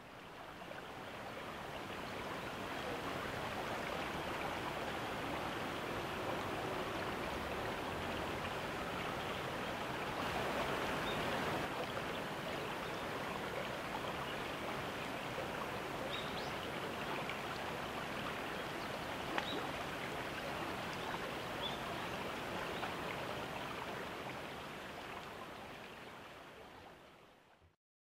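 Steady rush of a small river's flowing water, fading in at the start and out at the end, with a few faint, short, thin chirps in the second half.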